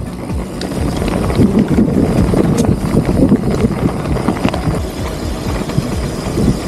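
Wind rumbling on the camera microphone and the rattle and knocks of a mountain bike rolling fast down a rough dirt singletrack.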